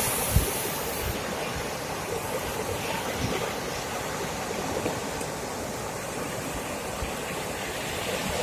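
Sea surf washing steadily onto the beach, with a few soft low bumps of wind on the microphone.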